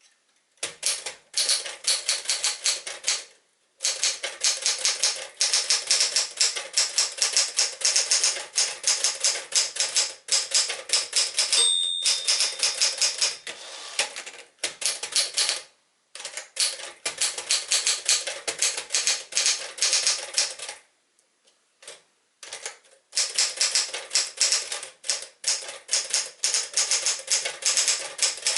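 1965 Smith-Corona Sterling portable manual typewriter being typed on in fast runs of keystrokes, with short pauses between runs. About twelve seconds in, its margin bell dings once.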